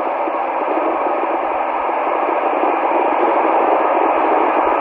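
FM radio static from a handheld amateur transceiver tuned to the AO-91 satellite downlink: a steady, band-limited hiss with the squelch open and no usable signal coming through.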